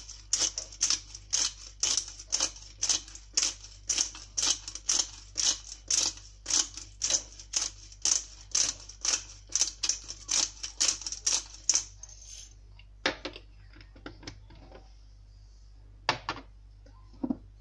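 Black pepper being ground in a hand pepper mill: a quick, even run of crunching clicks, about three or four a second, that stops about twelve seconds in. A couple of light knocks follow.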